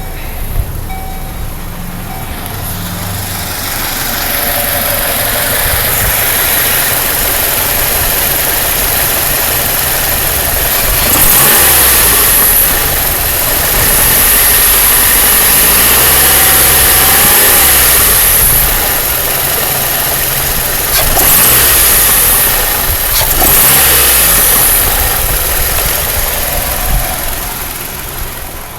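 Chevrolet Cavalier engine running and revved up several times, with a ticking from under the valve cover that the owner says is especially loud when cold and goes away once warm; he does not know its cause.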